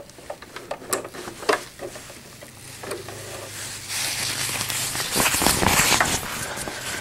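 PUL (laminated polyester) fabric rustling and crinkling as it is handled and folded right by the microphone, loudest about four to six and a half seconds in, after a couple of light clicks near the start. A low steady hum runs underneath.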